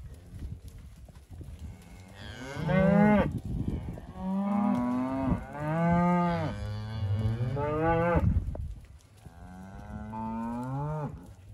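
Heifers mooing: a run of long, drawn-out moos, some overlapping, then after a short pause one more near the end.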